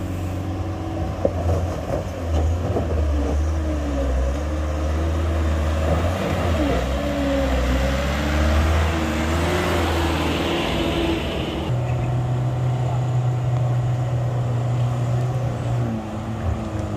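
Diesel engine of a Mitsubishi Canter truck labouring up a steep gravel slope, its pitch wavering up and down as the driver works it under load. It gets louder with tyre and gravel noise as the truck passes close around the middle, then settles to a steadier note for the last third.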